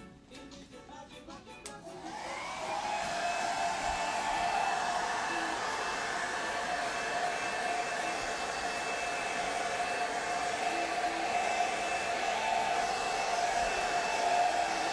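Handheld hair dryer switched on about two seconds in, its whine rising in pitch as it spins up, then blowing steadily.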